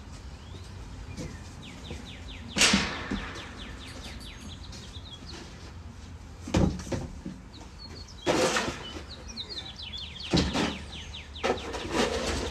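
Several short, loud, rough scraping noises a couple of seconds apart, from a man cleaning a dirt-floored dog pen. Between them a bird twitters in quick runs of high ticks, over a steady low hum.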